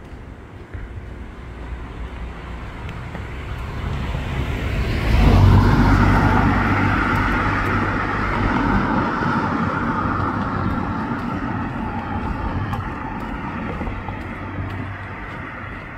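A motor vehicle passing close by. Its sound builds over the first five seconds, is loudest about five seconds in, then fades slowly.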